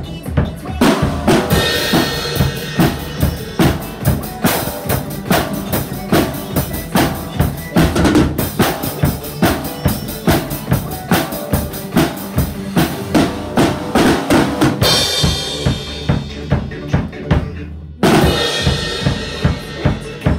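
Acoustic drum kit played in a steady rock beat, with bass drum and snare strikes several times a second and cymbal crashes washing over the beat. The high end drops out briefly near the end before the playing picks up again.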